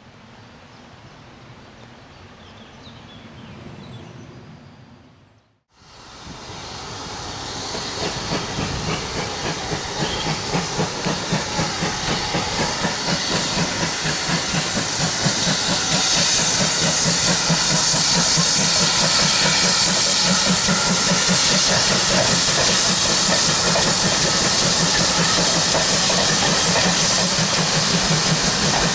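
After a few quieter seconds, ex-GWR 57xx pannier tank 9681 approaches from about six seconds in, its steam exhaust beating rhythmically and building in loudness. It then passes at full strength with loud hissing steam as the train of coaches rolls by.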